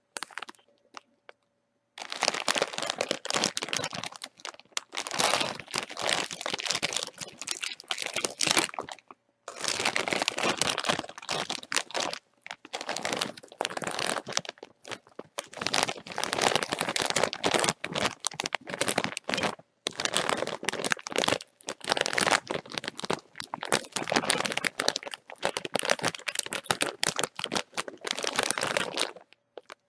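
A bag of chips being crinkled in long bouts of dense crackling. Silent for the first two seconds, then crackling with brief pauses a few times.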